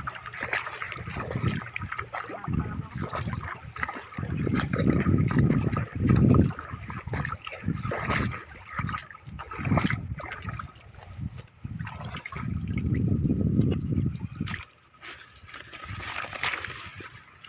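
Shallow water splashing, sloshing and trickling as it is stirred up during net fishing. The splashes come irregularly, with two longer spells of heavier sloshing, one a few seconds in and one past the middle, and lighter trickling near the end.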